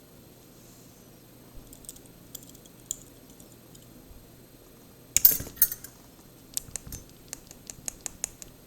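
Small metal clicks and taps from a disassembled DOM IX10 dimple lock and its tools being handled, with a brief louder metallic rattle about five seconds in, then a run of quick separate ticks.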